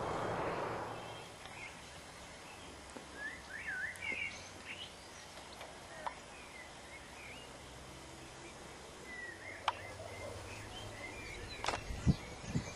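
Quiet outdoor ambience with birds calling in short chirping phrases a few seconds in and again near the end, and a few faint clicks and soft low thumps.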